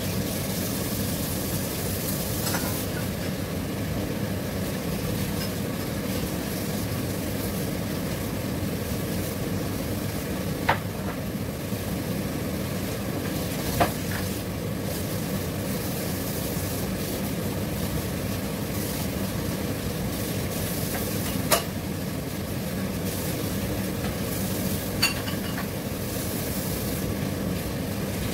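Squid tentacles simmering in sauce in a lidded pan on a gas burner: a steady bubbling and sizzling, with four sharp ticks scattered through.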